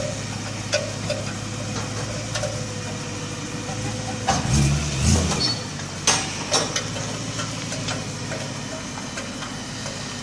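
Car engine running steadily at low speed, with a few sharp knocks and low thuds about four to six seconds in.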